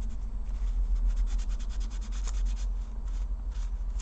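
Cotton swab scrubbing old thermal paste off a laptop CPU cooler's contact plate: quick back-and-forth rubbing strokes, about ten a second, that slow to a few separate strokes near the end.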